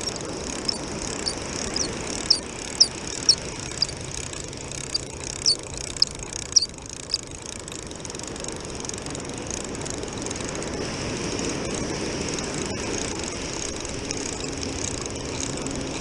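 Spinning reel being cranked to bring in a fish, giving a short high squeak about twice a second with the turns of the handle. The squeaking stops about six and a half seconds in. After that, surf washes steadily on the beach, and a low steady drone comes in near the end.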